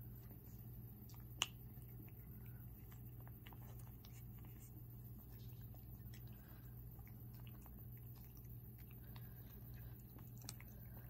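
Puppies eating dry kibble from a bowl: faint, scattered small crunches and clicks of chewing, with one sharper click about a second and a half in.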